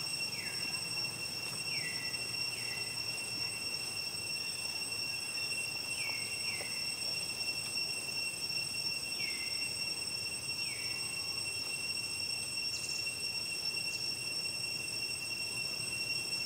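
Steady, high insect drone with several shrill tones held throughout. About seven short chirps, each sliding downward, come in the first ten or so seconds.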